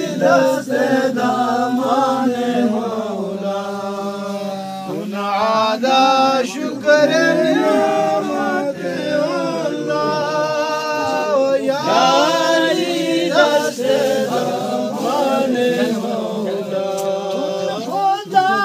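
Devotional chanting in praise of Ali, sung with long, wavering held notes over a steady low drone.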